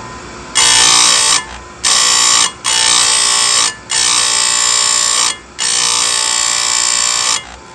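Chainsaw chain grinder's abrasive wheel grinding a cutter tooth of the chain in about five loud, high-pitched screeching passes, with short breaks between them, sharpening the tooth.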